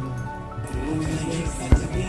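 Background music, with a single sharp click about a second and a half in.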